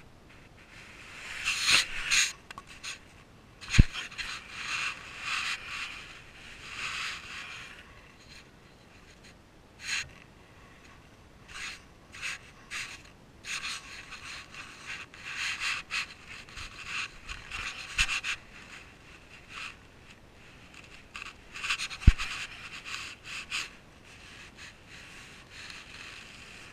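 Irregular scraping and rustling close to a body-worn action camera as a person moves about, in clusters separated by short lulls, with three sharp knocks.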